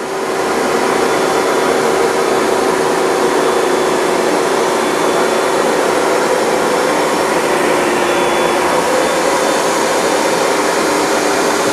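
Hoover Dual Power Max upright carpet cleaner running steadily, its suction motor whining as it is worked over stains on a wet rug. The level steps up slightly just after the start, then holds even.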